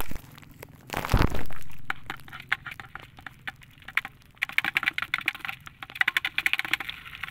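Live crabs in a plastic bucket scrabbling, their legs and shells clicking against the plastic in dense runs of rapid sharp clicks that start about halfway through. A louder rustling knock comes about a second in.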